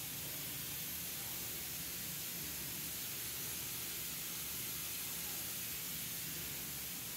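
Steady hiss of steam venting from a pressure cooker cooking beans, even and unbroken.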